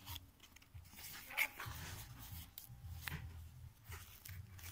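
Cardboard packaging being handled and slid open by hand: scattered light clicks and scrapes, the sharpest about a second and a half in.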